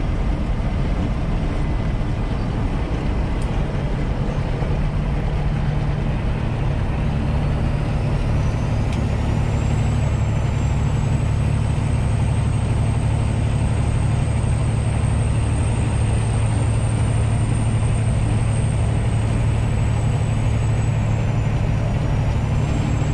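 Semi truck driving at speed: a steady low drone of diesel engine and road noise, with a faint high whine that rises about a third of the way in and then holds.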